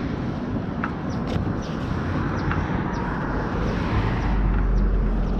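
Steady noise of road traffic passing, with a deeper rumble swelling about four seconds in and a few light clicks over it.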